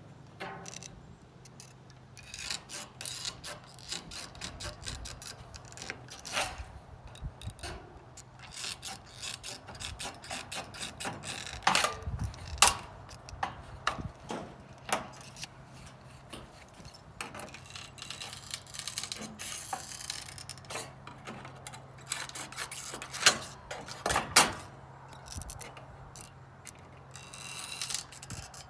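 Aviation snips clicking and cutting through thin steel trim, with the sheet metal scraping and rattling as it is handled and bent; irregular clicks and snaps, a few sharper ones midway and near the end. A steady low hum runs underneath.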